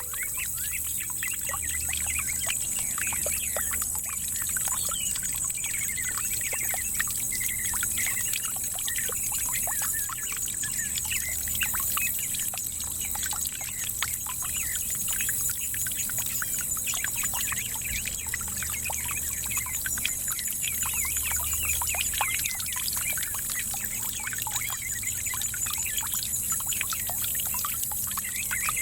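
Garden water fountain trickling and splashing steadily, with birds chirping over it.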